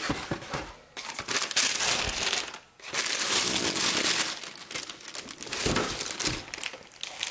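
Shoebox tissue paper crinkling and rustling as it is pulled back off a pair of sneakers, in several bursts with a short pause about three seconds in.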